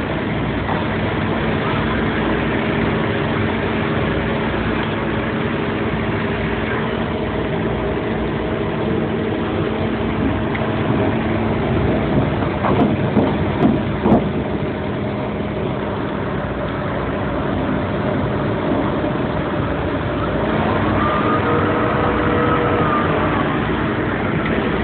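SANY mobile crane's diesel engine running steadily, with a few knocks a little past the middle and a brief whine that rises and falls near the end.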